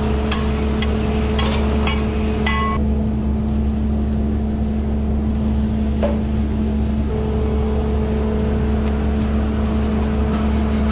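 Steady low mechanical hum of running kitchen equipment, with light clicks and clatter of utensils in the first couple of seconds.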